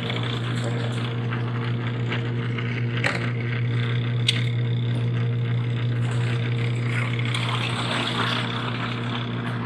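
Spin-dryer of a mini twin-tub washing machine running, timer set to 5, spinning wet T-shirts. Its motor gives a steady hum with a hiss of water being flung out over it, and there are a couple of light clicks.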